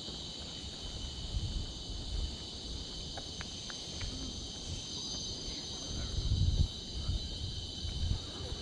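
Steady high-pitched chorus of insects in tropical forest, with low, uneven thumps underneath, loudest about six seconds in.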